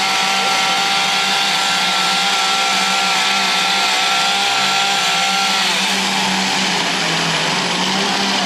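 Gasoline chainsaws running for wood carving, a steady high engine note that drops in pitch about six seconds in as a saw comes off the throttle.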